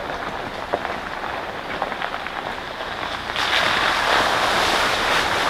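Jeep driving along a dirt trail with a few sharp ticks under the tyres; about three and a half seconds in its tyres hit a puddle, and a sudden, much louder rush of splashing water runs to the end.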